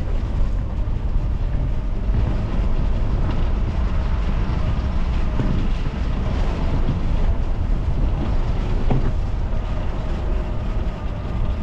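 Safari vehicle driving: a steady engine and road rumble, with wind buffeting the microphone.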